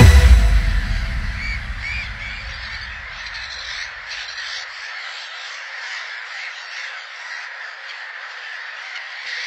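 Gulls calling repeatedly in short squawks over a steady rush of surf and wind, as electronic music fades out in the first second or two.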